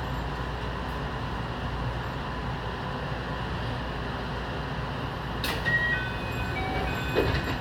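Electric commuter train running, a steady low rumble and hiss heard from the front of the train. About five and a half seconds in, a sharp click, then a short run of chime-like tones stepping between several pitches.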